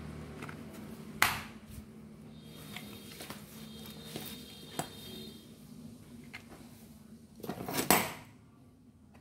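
Tools and parts being handled on a workbench: a sharp knock about a second in, scattered light clicks, and a cluster of knocks near the end.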